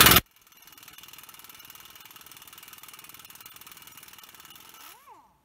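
A burst from a pneumatic impact wrench cuts off just at the start, then an air compressor runs steadily at a low level with a fast, even pulse. Near the end a brief rising-and-falling whine sounds, and then the sound cuts off.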